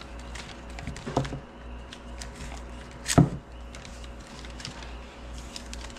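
Knife packaging being handled and unwrapped: light paper crinkles and clicks, a knock about a second in and a sharper, louder knock about three seconds in.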